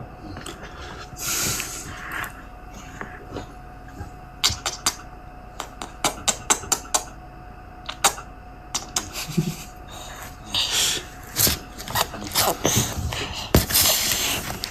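Irregular light clicks and knocks, as of small objects being handled and tapped, with a few short bursts of rustling and a faint steady tone underneath.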